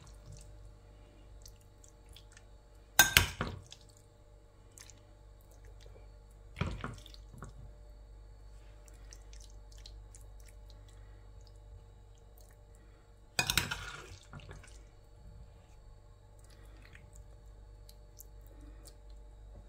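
Metal spoon scooping mayonnaise-dressed coleslaw into a ceramic serving dish: soft, wet, squishy scraping with three sharp knocks of the spoon against the dish, about three, seven and thirteen seconds in.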